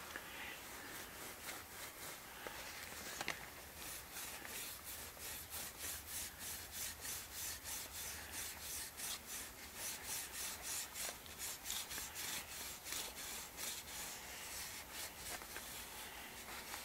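A cloth rag rubbing mineral oil into a pine trivet's edge, in quick back-and-forth strokes of about three a second that grow steadier after the first few seconds.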